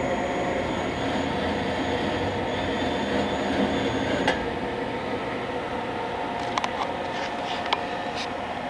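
Bridgeport EZ Path SD lathe running: a steady machine hum with a high whine that cuts off with a click about four seconds in, followed by a few sharp clicks.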